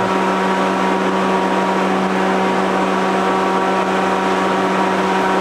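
Blower door fan running steadily, a constant hum with one strong steady tone, holding the house depressurised to 50 pascals for the air-leakage reading.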